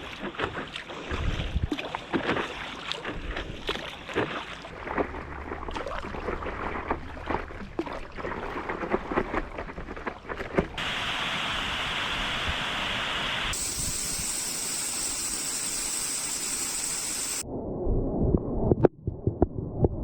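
Water sounds: irregular splashing like paddle strokes in water for the first half, then from about halfway a steady, even rush of falling water. Near the end this gives way to a muffled rumble with a few knocks.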